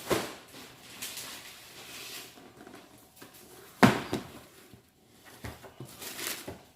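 Shoes and a shoebox being handled: scattered rustling and scraping, with one sharp knock about four seconds in.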